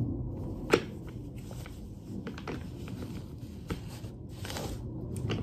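Handling noise as a loosely woven cloth dust bag is pulled down off a hard vanity case: fabric rustling, with a sharp click or knock under a second in and lighter knocks later.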